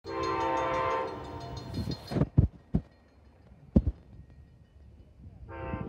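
Horn of Amtrak's approaching Crescent passenger train, a chord of several steady tones, sounding for about a second at the start and again near the end. A few sharp knocks come in between.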